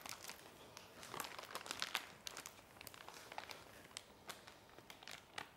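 Plastic piping bag crinkling faintly in scattered small crackles as ricotta cream is scraped into it with a spatula.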